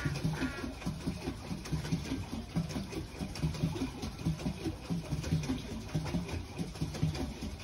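Pedal boat's pedal drive and paddle wheel turning, a low rhythmic thumping about twice a second with faint clicks.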